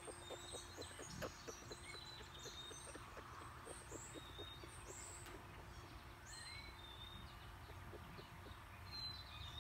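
Faint outdoor ambience of small birds chirping, with many short, high calls scattered throughout. A run of soft, quick clicks is heard through roughly the first half.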